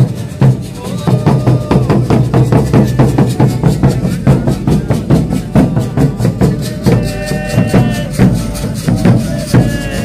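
Folia de Reis music: hand-carried drums beating a fast, steady rhythm, with a few held notes sounding above it about seven seconds in.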